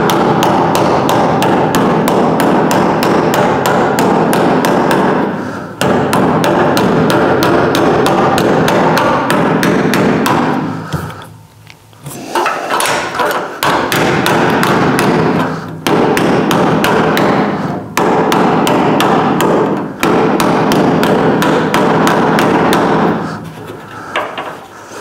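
Ball-peen hammer tapping quickly and lightly on a sheet-steel patch, several strikes a second in runs of a few seconds with brief pauses between them: the patch is being stretched and formed into a curve by hand.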